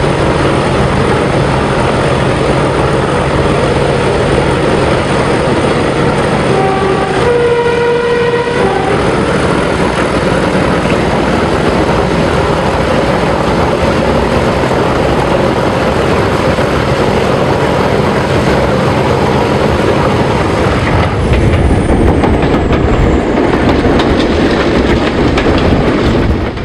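Class 31 diesel locomotive's English Electric 12SVT engine working hard under full power, with wheel and rail noise, heard from the train in a tunnel. The two-tone horn sounds briefly about seven seconds in. The sound opens out at about 21 s as the train leaves the tunnel.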